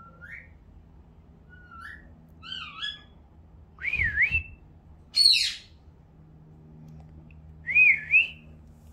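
A pet talking bird whistling: several short rising and wavering whistles, with one loud, harsh, high-pitched call about five seconds in.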